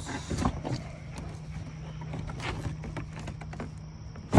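Cardboard box being moved and handled: scattered light knocks and scuffs, with one louder thump at the very end, over a steady low hum.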